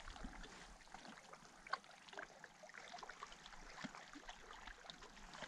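Faint lapping and trickling of lake water, with scattered small ticks and drips.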